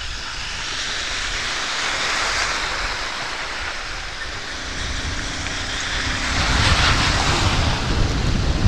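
Wind and road noise rushing over a riding motorcycle's microphone, swelling and fading, loudest about two-thirds of the way in.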